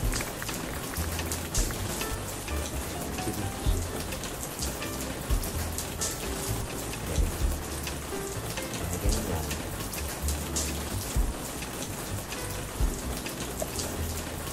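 Tap water running into a stainless-steel kitchen sink and splashing onto dishes, a steady hiss with scattered knocks of dishes being moved.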